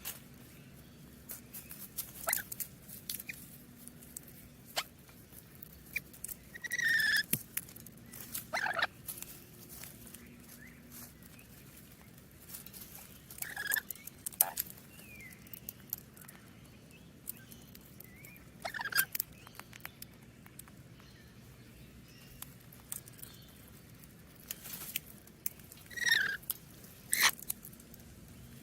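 Parrots calling: short, scattered squawks and chirps, with sharp clicks in between and a few louder, harsher calls spread through.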